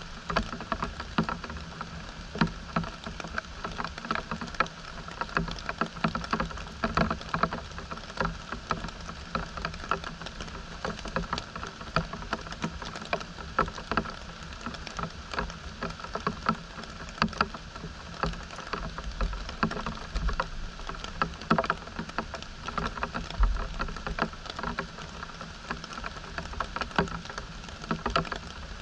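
Rain pattering steadily, with many irregular drops striking close by.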